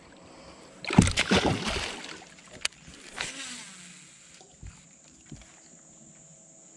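Water splashing beside a boat in a loud burst of several strokes lasting about a second, then a sharp knock and a smaller splash. After that only faint rustling.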